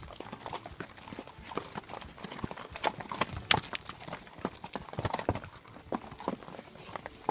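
A horse's hooves clopping over a rocky, stony trail at a walk: an uneven run of knocks.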